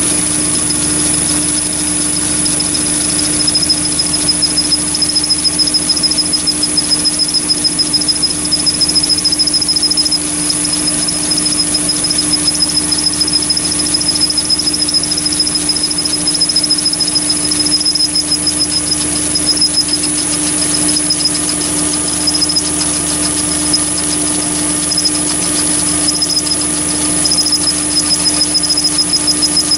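Chinese mini lathe running with a steady motor whine while an end mill in the chuck cuts a slot in brass tube held in a toolpost vice. A fast, regular pulsing runs through the cut from about three seconds in.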